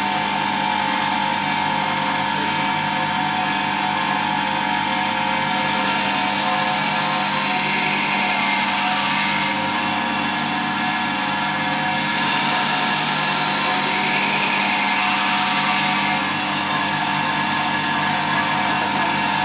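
INMAR Tesar LX belt sharpening machine running steadily with a constant motor whine. Twice, for about four seconds each, a loud high hiss of a steel pruning-shear blade grinding against the moving abrasive belt rises over it.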